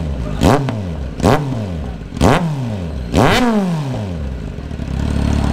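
Kawasaki Z900 inline-four engine with the breadbox pre-muffler deleted, blipped four times about a second apart, each rev rising sharply and falling straight back, then settling to a steady idle near the end.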